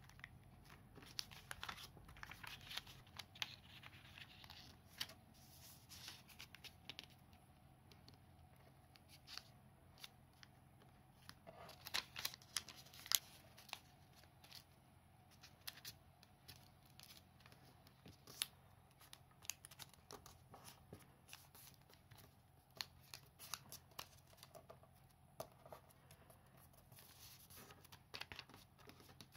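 Origami paper being folded by hand and its creases pressed flat with the fingers. It gives faint crinkles and rustles with scattered sharp clicks, and a cluster of louder crackles about halfway through.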